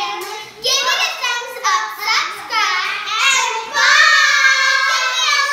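Several children singing and shouting in high voices; about four seconds in, they break into one loud, long shout together.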